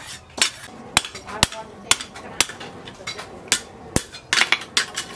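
Hand hammer striking a red-hot leaf-spring steel billhook blade on a steel anvil block, a steady run of sharp blows about two a second.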